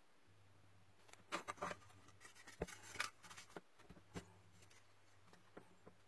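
Small clicks and scrapes of hand tools working on the tiny micro USB charging port of a pair of Bluetooth earmuffs, bunched between about one and four seconds in, over a faint low hum.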